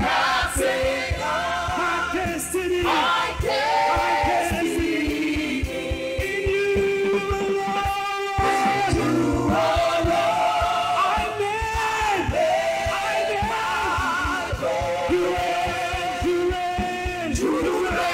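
Gospel worship singing: a male lead and a group of backing singers singing together over band accompaniment with a steady beat.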